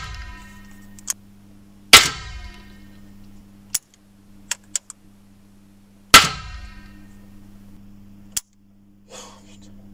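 Two shots from a Pallas BA-15 .22LR semi-automatic rifle, about two and six seconds in, each followed by a ringing tail. Several light clicks fall between the shots, over a steady low hum.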